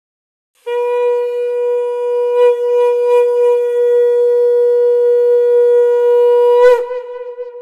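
A conch shell (shankh) blown in one long steady note, held for about six seconds, its pitch dipping as it breaks off near the end.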